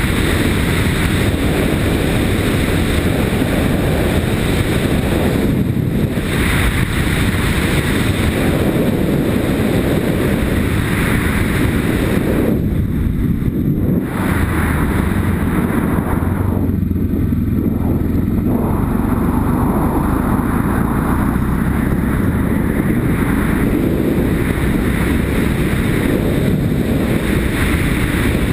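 Yamaha Ténéré motorcycle riding on a gravel track: steady engine and tyre rumble under heavy wind noise on the helmet-mounted camera's microphone. The wind noise thins out briefly twice midway.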